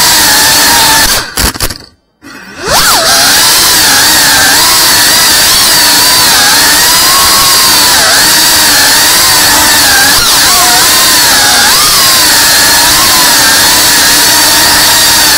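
FPV quadcopter's motors and propellers whining loudly, the pitch wavering up and down with the throttle. About a second in the whine cuts out for a moment, then spins back up with a quick rising whine.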